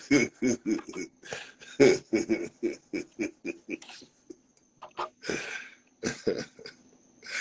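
A man laughing hard, a quick run of short bursts about four or five a second, then after a brief pause a few breathy laughs.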